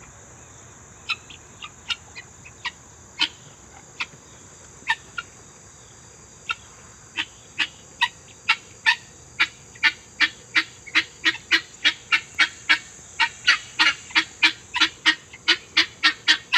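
A farm bird giving short, sharp calls over and over. They are scattered at first, then from about seven seconds in come evenly at about three a second and grow louder.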